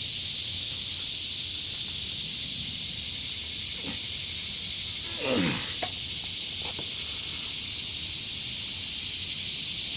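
Steady high-pitched buzzing of insects in summer heat. About five seconds in, a brief sound slides downward in pitch.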